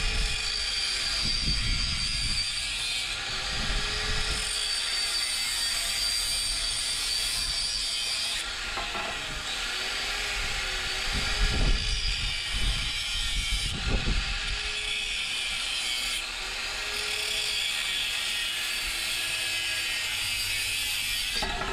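Electric angle grinder with a cut-off disc cutting through rusty steel exhaust pipe, a steady grinding whine whose pitch rises and falls every few seconds.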